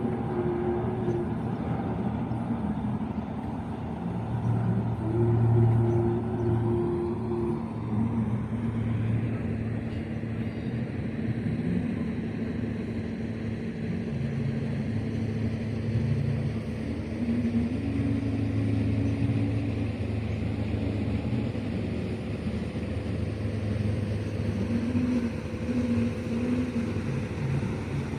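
Steady low mechanical rumble of engines, with a constant hum and short droning tones now and then.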